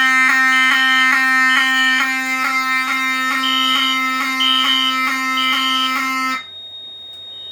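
Fire alarm horn sounding a loud buzzing tone, with a higher beep in groups of three in the code 3 temporal pattern. About six and a half seconds in, the horn is silenced and cuts off abruptly. A faint code 3 beep keeps going after that, because the horn is not all the way off under audible silence.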